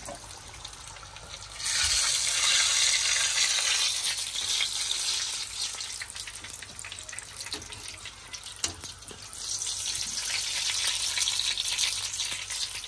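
Batter-coated fish fillets frying in shallow oil in a pan: a steady hissing sizzle with fine crackles. It swells loud about two seconds in, eases off midway, and swells again near the end.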